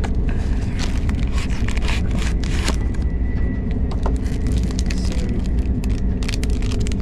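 A paper snack packet being opened and handled, giving many short crackles and rustles, over the steady low rumble of a KTX high-speed train's cabin.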